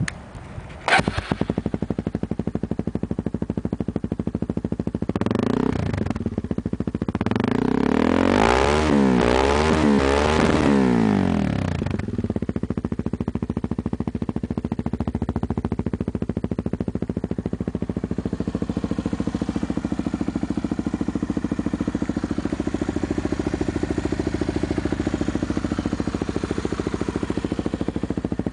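Honda XR250 Tornado's single-cylinder four-stroke engine running through an aftermarket WACS sport exhaust tip. It starts with a sharp bang about a second in, then idles with a steady pulse. It is revved briefly, then given a longer series of rising and falling revs before it settles back to idle.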